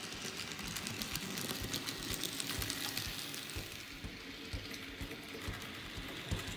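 N-scale model train running on the layout's track: a low electric motor hum with irregular light clicks of wheels over the rails.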